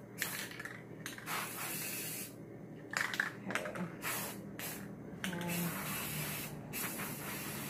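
Aerosol spray paint can hissing in several short bursts with brief pauses between them.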